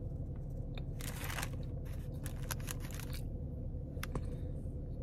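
Steady low rumble inside a car cabin, with a scatter of small clicks and crackles, thickest in the middle.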